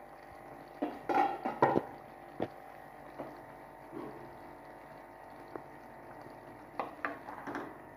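Turnip, potato and pea curry simmering and bubbling in a pot in the water the turnips have released, with a few short clatters about a second in and again near the end.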